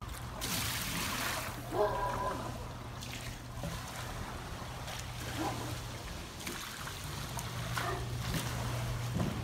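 Swimming pool water sloshing in waves and splashing over the pool's edge onto the concrete deck, set rocking by earthquake shaking, over a steady low hum.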